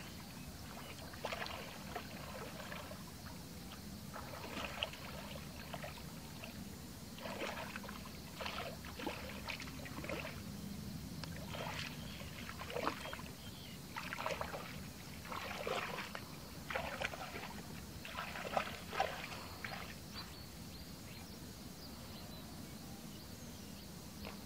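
Bare legs wading through shallow muddy water, sloshing and splashing in uneven strokes about once a second, stopping a few seconds before the end.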